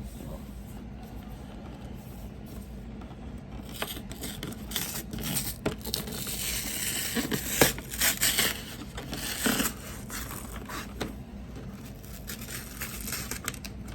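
Cardboard and plastic packaging of a trading-card collection box being torn and scraped open, with crinkling and sharp clicks. It starts about four seconds in, is loudest in the middle and tails off near the end. A low steady hum runs underneath.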